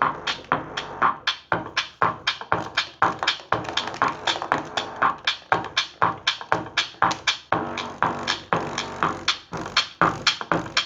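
Electronic dance music with a fast, steady drum-machine beat, played through a stereo amplifier board and its speakers under test.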